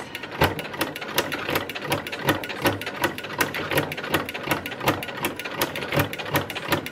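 Sewing machine running with an ultimate ruffler foot, stitching and pleating a strip of thick fabric: a noisy, rapid, steady clatter of stitches with a louder clack about three times a second.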